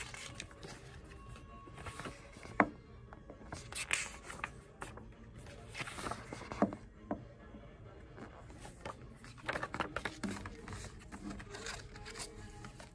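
Paper photo cards and a cardboard box being handled on a table: rustling, sliding and sharp taps, the loudest about two and a half seconds in, over quiet background music.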